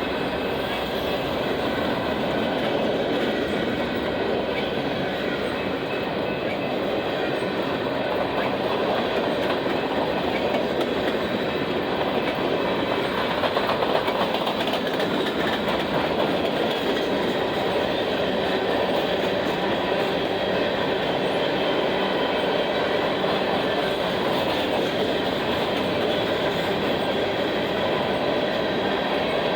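Cars of a Union Pacific mixed freight train rolling past at a steady speed, wheels clattering and rumbling on the rails without a break.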